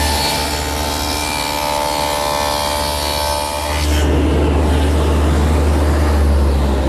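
Table saw fitted with a stacked dado head, running and cutting a dado in plywood; the steady whining sound shifts abruptly to a rougher, noisier one about four seconds in.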